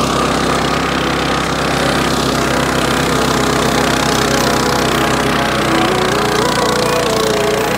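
Walk-behind flail mower's engine running steadily under load as the flail rotor chops through tall grass.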